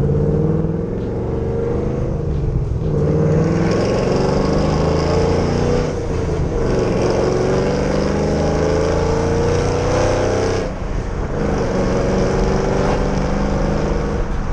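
2010 Camaro SS's cammed LS3 V8 with long-tube headers and Borla ATAK exhaust, pulling hard through the gears of its manual gearbox. The engine note climbs and drops back at shifts about three and eleven seconds in. It runs clean, without the loud ticking of the blown header gasket, which has just been replaced along with the spark plugs to cure a misfire.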